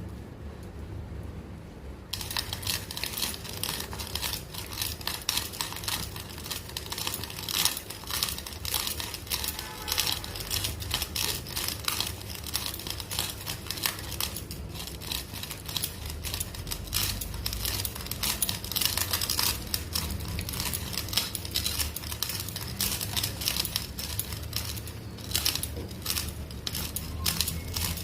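Whole dry spices for shukto being crushed by hand without a grinder: a dense, irregular crackling and crinkling that starts about two seconds in.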